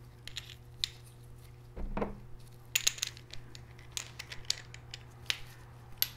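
Light metal clicks and clinks as oiled steel reverse-gear parts are handled and fitted into a VW 02J-family manual transmission case, a scatter of separate taps with a few sharper ones in the middle.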